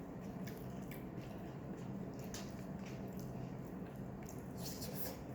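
Close-up wet, squishy eating sounds with scattered small clicks, from Korean-style sauced fried chicken being handled and bitten into. A steady low hum runs underneath.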